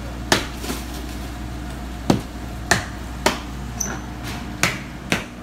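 Hammer blows at uneven intervals, about six sharp strikes in five seconds, over a steady low hum.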